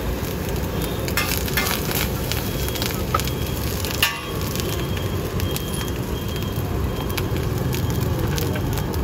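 Fried rice sizzling in a wok over a gas burner, with scattered clicks and knocks and one sharper knock about four seconds in.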